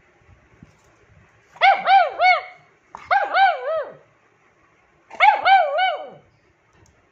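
Nine-year-old pug giving high-pitched yelping barks, three bursts of three or four quick rising-and-falling yelps each, calling for attention.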